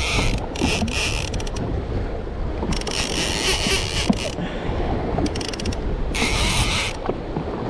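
Shimano Talica 12 lever-drag reel cranked in several spurts of a second or so, its gears whirring and ticking as a hooked fish is reeled up. Wind buffets the microphone over a steady rumble of wind and chop.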